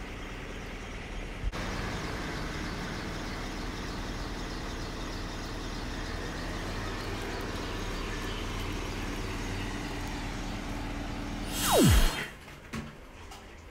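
Steady street traffic noise from vehicles on the road. Near the end it is cut off by a brief loud whoosh that drops quickly in pitch.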